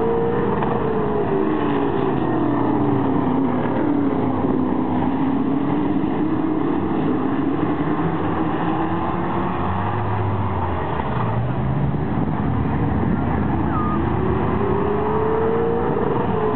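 A pack of Late Model stock cars racing, their V8 engines a loud continuous drone. The pitch falls over the first few seconds as the pack moves away around the oval, then climbs again toward the end as it comes back.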